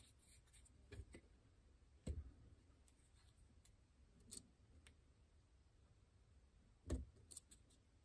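Sparse, faint metallic clicks and taps of a lock pick working the sliders of a Fontaine pump (slider) lock held under tension. About five short ticks are spread through, the clearest about two seconds in and near the end, as a slider is pushed toward its gate.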